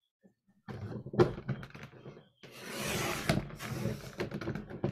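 Cardstock being slid into place on a Creative Memories 12-inch paper trimmer, with a few clicks and rustles. Then, about two and a half seconds in, the trimmer's sliding blade is drawn down its track with a rough scraping hiss lasting about two seconds. The cut does not go all the way through the cardstock, on a trimmer whose cutting mat strip has just been changed.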